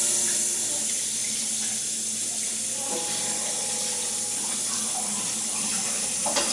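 Kitchen tap running steadily while hands are rinsed under it, with a knock near the end.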